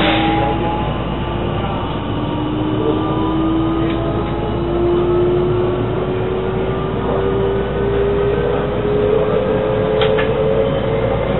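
JR West 223 series 2500 subseries electric train running, heard from behind the cab: a steady rumble of wheels on track, with the traction motor whine rising slowly in pitch as the train gathers speed. A few sharp clicks come from the wheels over rail joints, one about ten seconds in.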